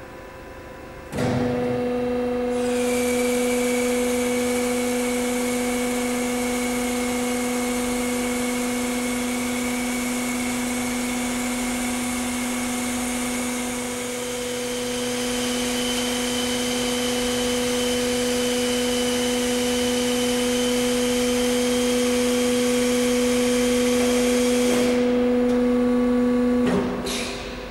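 Wind turbine hub turner's drive running as it rotates the hub: a steady hum that starts abruptly about a second in, joined shortly after by a higher whine, and cuts off about a second before the end.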